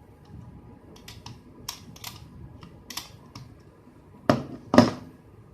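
Small clicks and taps from a screwdriver and the plastic casing of a hair trimmer being worked on by hand during disassembly, with two louder knocks about half a second apart near the end.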